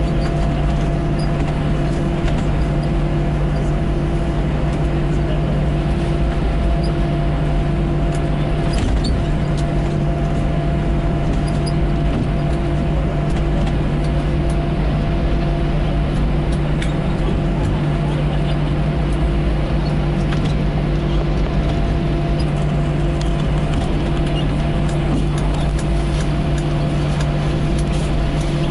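Airbus A321 cabin noise while taxiing: the jet engines running at low taxi power, a steady drone with several constant hum tones, heard inside the cabin.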